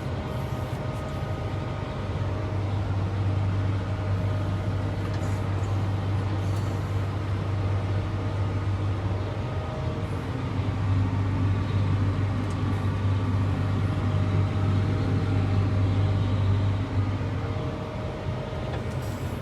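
Heavy harvest machinery running steadily: a constant low engine drone with several steady tones layered over it.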